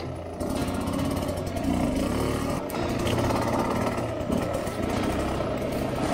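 Sherco 250 SE-R two-stroke single-cylinder enduro engine running at low revs on a trail ride, its pitch rising and falling with the throttle.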